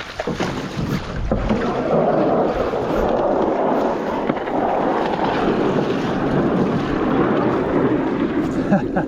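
Water rushing loudly around a square-stern canoe's hull as the boat pushes up through a shallow riffle. The rushing builds over the first second or two and then holds steady.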